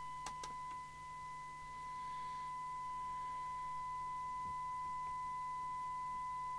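Steady 1 kHz test tone, with a fainter overtone an octave up, received by an Amstrad CB901 CB radio and heard from its speaker over a low hum during a sensitivity test. The receiver only reaches about 18 dB SINAD, a shortfall the repairer later puts down to a broken 455 kHz filter. A couple of faint clicks come near the start.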